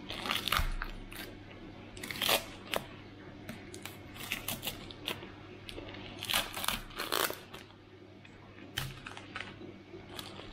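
Brown packing tape being peeled and ripped off a plastic jar in several short tearing pulls, with crinkling of the loose tape. The strongest rips come about two seconds in and again around six to seven seconds in.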